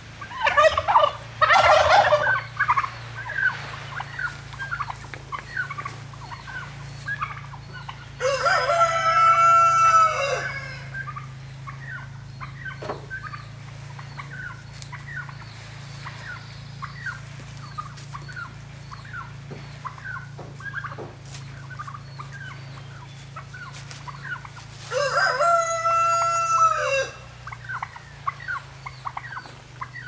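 Rooster crowing twice, each crow about two seconds long, about eight seconds in and again near the end, with chickens clucking in short calls throughout. A loud burst of sound comes about a second in.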